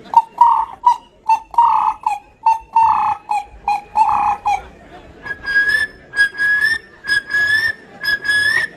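A series of clear whistled notes: first a run of short and longer held notes at one lower pitch, then, about five seconds in, a run of longer notes at a higher pitch, each rising slightly at its end.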